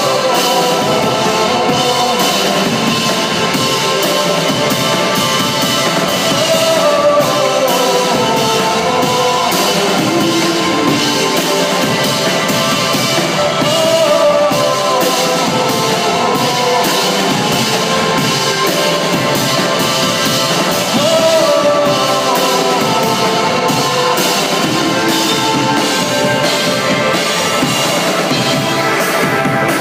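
Live rock band playing at full volume: distorted electric guitar, a drum kit and a male voice singing, heard through the venue's PA from the audience.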